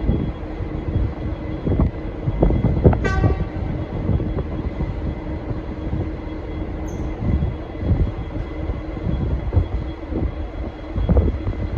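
Steady low rumble of a V/Line N class diesel-electric locomotive, with scattered knocks and a brief falling squeal about three seconds in.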